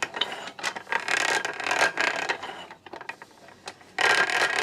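Antique horizontal treadle grinder being pedalled, its unoiled mechanism rattling and scraping in uneven pulses. The noise drops away about two-thirds of the way through, then starts again sharply near the end.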